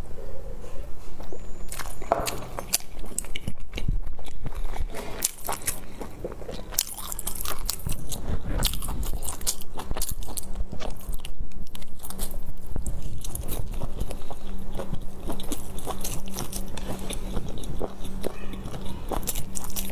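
Close-up chewing and biting of large pan-fried dumplings, with irregular moist mouth sounds and crunchy bites.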